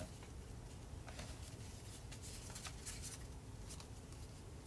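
Folded paper rustling and crinkling as small origami pieces are handled and pushed together, in a run of short crisp rustles that is busiest between about one and three seconds in.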